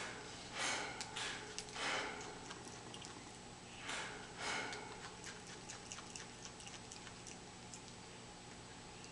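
A ring-tailed lemur feeding on willow leaves: a few louder rustling bursts in the first five seconds as leaves are pulled and bitten, then small quick clicks of chewing.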